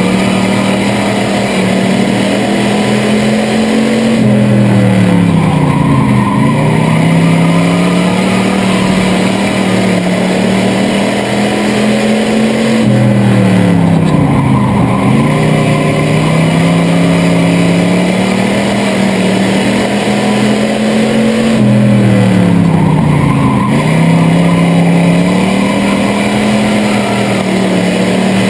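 Chevrolet 305 small-block V8 of a bomber-class stock car, heard from inside the cockpit, running hard through a race. Its pitch drops and climbs back three times, about nine seconds apart, as the driver lifts off for the turns and accelerates again down the straights.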